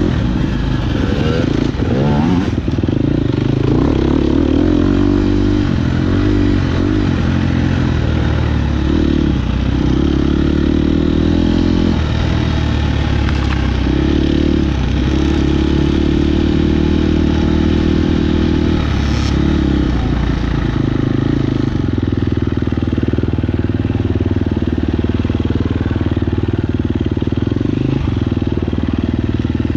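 KTM 250 XC-F single-cylinder four-stroke off-road motorcycle engine running under load, its pitch rising and falling every few seconds with throttle and gear changes.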